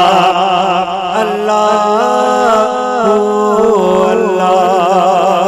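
A man singing a Punjabi naat into a microphone, drawing out one long melismatic phrase with a wavering vibrato and a few held, level notes in the middle.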